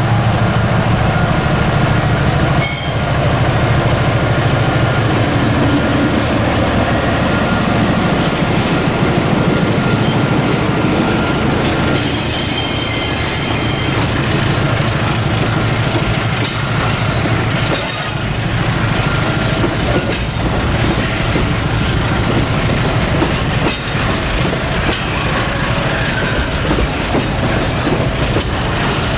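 Diesel-hauled freight train of container wagons passing close by. The locomotive's engine hum fades in the first few seconds, then steel wheels rumble and clatter over the rail joints, with brief high wheel squeals about 3 and 12 seconds in.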